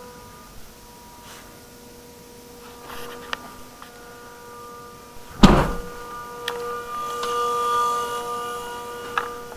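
A car door, a Toyota Previa van's front door, slams shut once about halfway through. A steady electrical whine runs underneath and grows a little louder afterwards.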